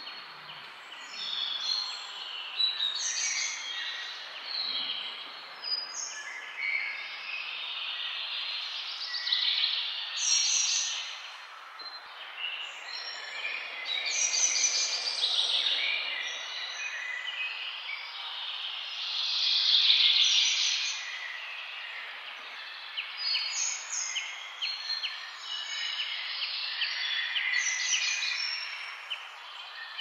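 Many birds calling and chirping at once in a dense, overlapping chorus of high chirps and calls, with a run of quick repeated chirps near the end.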